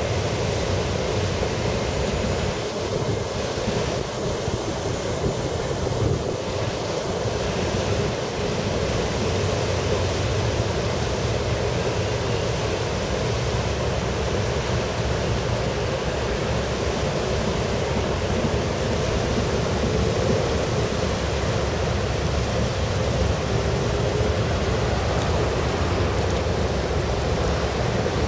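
Sakurajima ferry's propeller wash churning the harbour water: a steady rushing noise with a low rumble under it, unbroken throughout.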